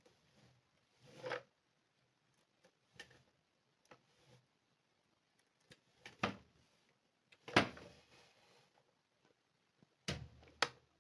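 Scattered knocks and clicks, like objects being handled or set down: about six or seven short sounds spread out, the loudest about two-thirds of the way in.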